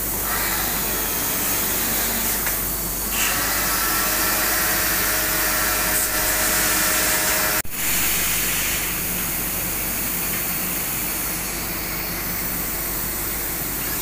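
Handheld electric pressure washer spraying water onto an air conditioner's indoor unit: a steady hissing spray with the machine running. The sound breaks off abruptly about seven and a half seconds in, and a steady hiss carries on afterwards.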